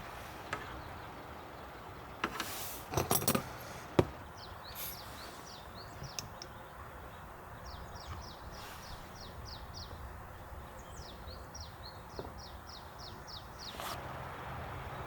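A small bird chirping in quick runs of short falling notes over a steady hiss of rain, with a few sharp knocks about three to four seconds in.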